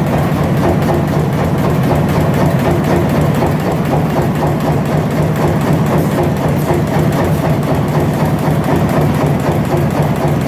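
Amada ARIES 244 CNC turret punch press running: a steady machine hum with a fast, continuous patter of clattering strokes.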